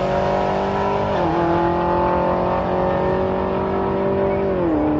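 Car engine and exhaust holding a steady drone, its pitch stepping down slightly about a second in and again near the end.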